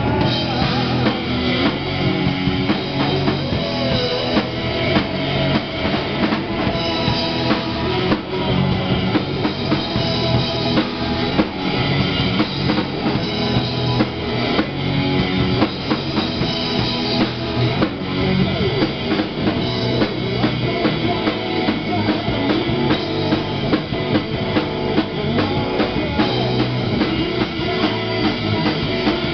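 Live rock band playing loudly and without a break: a drum kit with bass drum and cymbals driving a steady beat under an amplified electric guitar.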